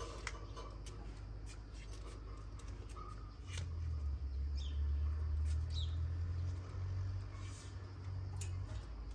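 Faint outdoor ambience: a few short, falling bird chirps over scattered light clicks, with a low rumble setting in about three and a half seconds in.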